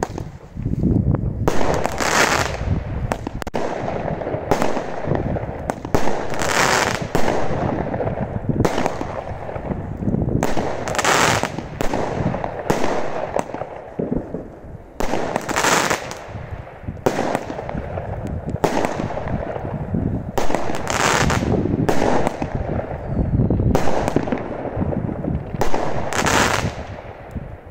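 Brothers Pyrotechnics 'Exploding Cherries' firework battery firing one shot after another. Each launch is followed by a bang in the air, with the loudest reports coming roughly every two seconds and smaller cracks in between.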